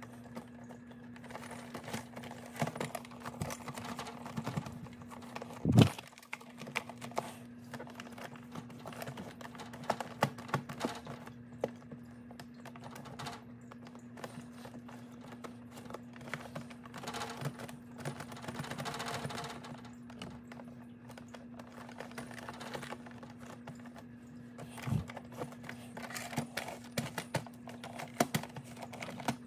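Paper towel rubbing and wiping over the rubber skin of a Big Mouth Billy Bass singing fish, with irregular small taps and clicks from handling the plastic plaque and fish, and one louder thump about six seconds in. A steady low hum runs underneath.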